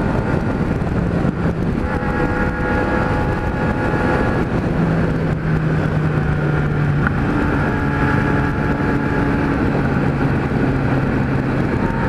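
Kawasaki Z1000's inline-four engine running through a 4-into-1 aftermarket exhaust with its baffle fitted, heard from the saddle while cruising, with wind noise on the microphone. The engine note holds steady and steps to a new pitch a few times.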